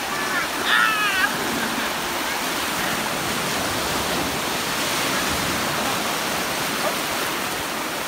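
Sea surf washing and breaking in the shallows, a steady rush of water throughout. About a second in, a child gives a short high-pitched cry.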